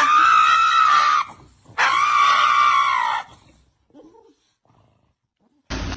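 An animal giving two long, high-pitched calls of about a second each, held at a steady pitch, then falling quiet; a loud, noisy sound starts just before the end.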